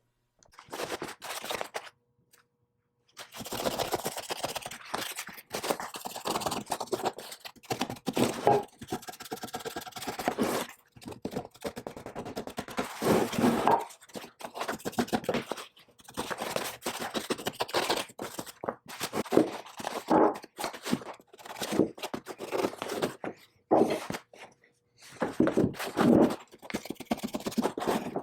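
Scraping on metal parts by hand, in quick irregular strokes with occasional knocks and short pauses.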